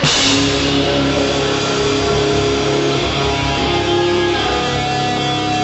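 Rock band playing: a crash at the start, then distorted electric guitar chords held and ringing over the drums. The sound cuts off abruptly at the end.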